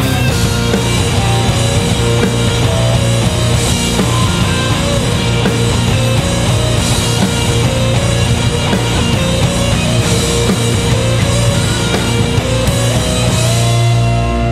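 Rock band playing live: electric guitar over a full drum kit and bass, loud and dense. Near the end the drum hits thin out and sustained guitar notes ring on.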